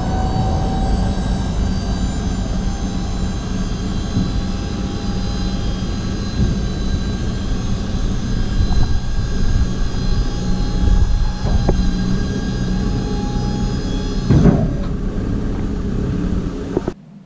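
Hydraulic pump of a tipper van's tipping body running with a steady whine over a low hum as the body is operated. There is a knock about fourteen and a half seconds in, and the sound cuts off suddenly near the end.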